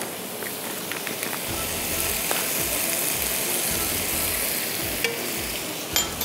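Chopped tomatoes, onions and whole spices sizzling as they fry in a nonstick pan over a gas flame. A few sharp clicks of a spoon and spatula against the pan come as chili powder goes in and is stirred.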